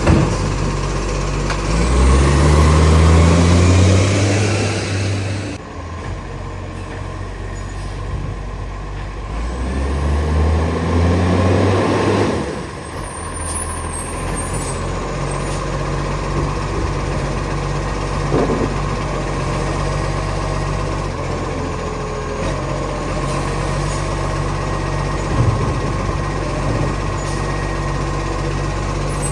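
Garbage truck's diesel engine, which has an exhaust leak, revving up twice, each rev rising in pitch for a few seconds and then cutting back sharply, before settling into a steady idle.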